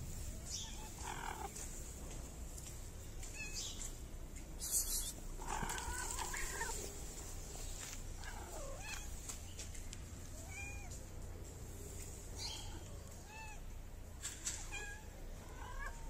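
Cat meowing repeatedly: a longer meow about six seconds in, then a string of short, high mews. A brief sharp noise comes just before the long meow.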